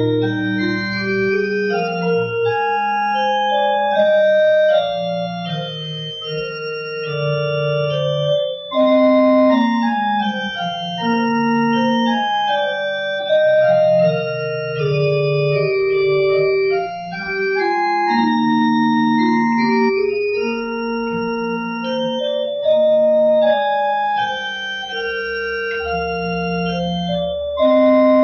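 Church pipe organ played solo: a slow piece in sustained chords, the melody moving over held low notes.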